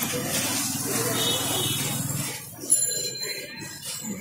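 Busy street noise with a cycle rickshaw's bell ringing in thin, high rings around the middle, and a sharp knock shortly after.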